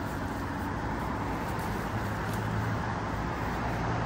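Steady road-traffic noise, a constant rumble and hiss that does not rise or fall.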